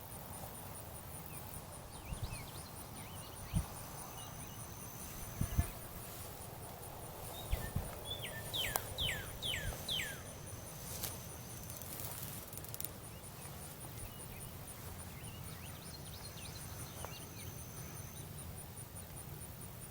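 Rural summer ambience: insects chirping in a steady, rapid high-pitched pulse, with a fainter buzz coming and going. About eight seconds in, a bird gives four quick notes, each sliding down in pitch. A few low thumps sound in the first half.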